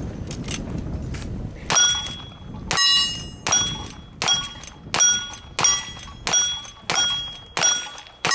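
Steel targets being hit by a quick string of about nine shots. The first comes about two seconds in, then one every two-thirds of a second or so, and each hit rings with a clear metallic tone.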